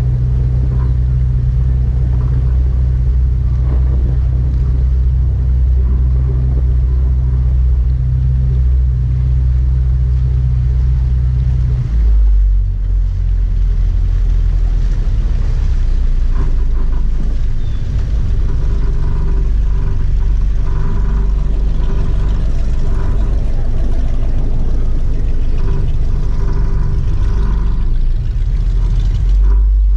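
Boat engine idling with a steady low rumble; its note changes abruptly about twelve seconds in and then runs steady again.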